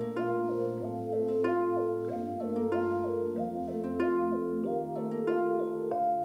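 Music played by a Redmi XiaoAi Play smart speaker: a song's instrumental intro, a quick repeating figure of plucked, harp-like notes over a bass line.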